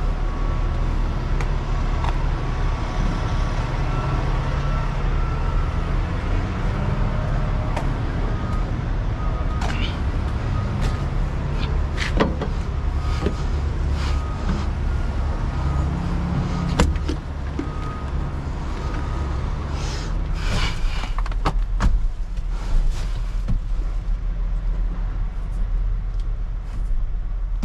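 Heavy diesel engine idling steadily, with scattered metallic knocks and clanks as someone climbs the steel steps and deck of an articulated dump truck and works the cab door.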